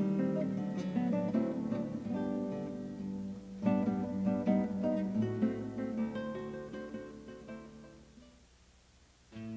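Background music of plucked acoustic guitar, fading out in the last few seconds to near silence, then a new passage of music starts suddenly just before the end.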